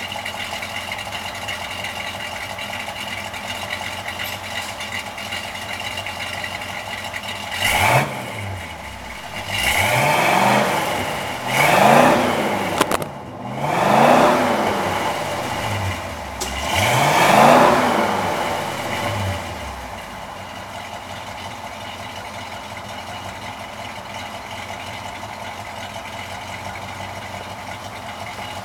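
1970 Pontiac GTO's temporary 350-cubic-inch V8 idling through a half-assembled Summit Racing exhaust. It is blipped up and down five times in quick succession, each rev rising and falling, and then settles back to idle. On the first rev the exhaust blast knocks the camera over, with a sharp clatter.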